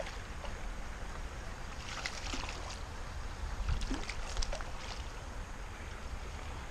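A small bass being reeled in on a spinning rod and lifted from the creek: scattered light splashes and clicks, over a steady low rumble.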